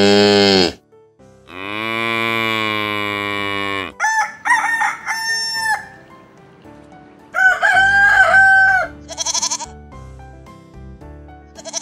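A cow mooing, two long calls in the first four seconds, then a rooster crowing twice, each a stepped cock-a-doodle-doo ending in a long held note. A short bleat follows near the end, over soft background music.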